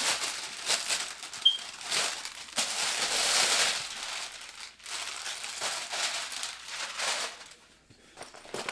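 Packaging being handled and pulled open: irregular crinkling and rustling, dying away near the end.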